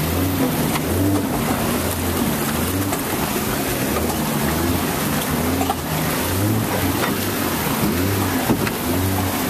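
Jeep Wrangler wading through deep, muddy water on a flooded trail: steady rushing and splashing of water against the body and wheels, with the engine running underneath.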